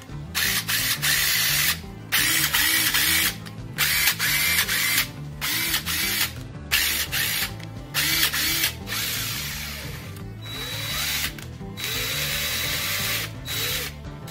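DeWalt DCF880 18V cordless impact wrench test-run after repair of its switch/PCB and brush holder assemblies. It runs in a series of short trigger pulls of a second or so each, with brief pauses between them, then in quieter, steadier runs over the last few seconds.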